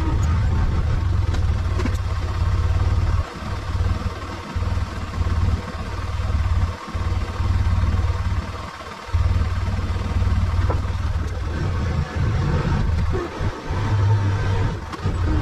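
Engine of a side-by-side utility vehicle running with a steady low rumble that drops away briefly a few times.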